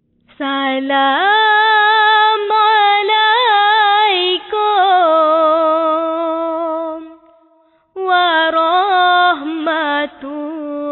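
A solo voice singing long, ornamented melismatic phrases unaccompanied. There are two phrases, with a pause of about a second between them about seven seconds in.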